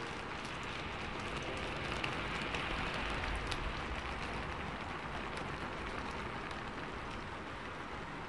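Milk sizzling in a hot nonstick pan: a steady crackling hiss with fine pops, a little louder two to three seconds in.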